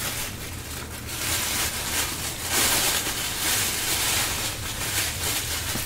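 Bubble wrap and plastic packaging being handled and pushed aside, a steady rustling noise that swells in the middle.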